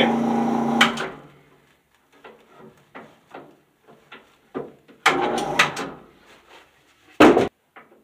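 Bandsaw motor humming steadily, switched off just under a second in and running down, after the saw has failed to cut the brush disc. Then scattered clicks and knocks of the saw's blade guide being adjusted, a brief clatter about five seconds in, and one sharp bang near the end.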